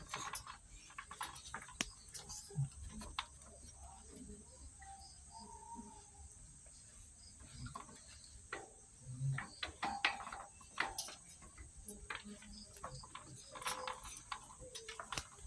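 A dachshund shifting about in a wire crate: scattered light clicks and small rattles of its claws on the wire-grid floor.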